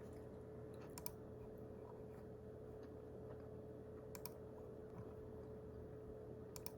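Faint computer keyboard keystrokes: a few sparse clicks about a second in, at about four seconds and near the end, over a steady electrical hum.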